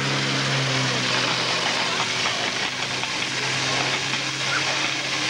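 Portable fire pump engine running steadily under load, with the hiss and spatter of water jets from the hoses striking the targets.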